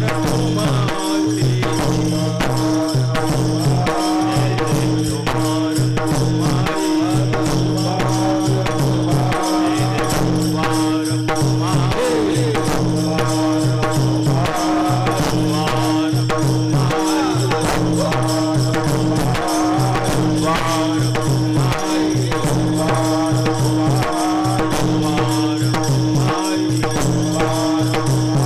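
Marathi devotional kirtan music: a voice sings a wavering melody over a constant held drone note, with continuous jingling percussion.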